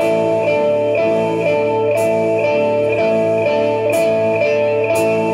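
Live rock band playing: electric guitars ringing out sustained chords in a repeating pulse over drums, with cymbal crashes about two seconds in and twice more near the end.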